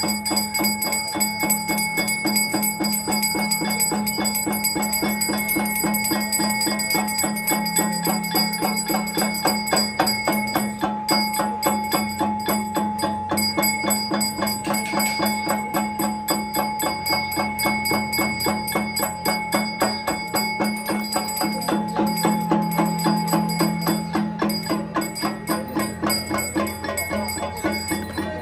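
Temple bells rung rapidly and continuously in an even rhythm during a Hindu mahapuja, their ringing tones held over a steady low tone.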